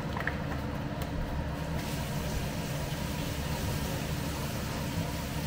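Steady low rumble and hiss of kitchen background noise from gas burners lit on the stove and the cooker hood above them.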